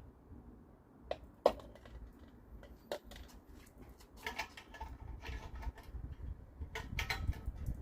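Scattered clicks and knocks, a few sharp ones in the first three seconds, from the 1964 NSU Quickly moped being worked to start it for the first time after its engine rebuild. A faint low rumble grows near the end.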